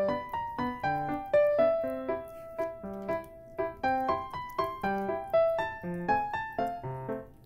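Background piano music: a light melody of quick, evenly paced notes over a lower accompaniment.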